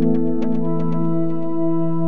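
Instrumental background music: a held chord with a quick run of struck notes over it in the first second.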